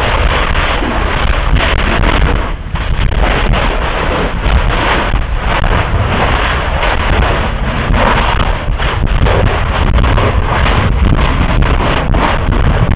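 Lava fountain at a Kilauea spatter cone erupting with a continuous loud roar and many crackling blasts, with wind buffeting the microphone.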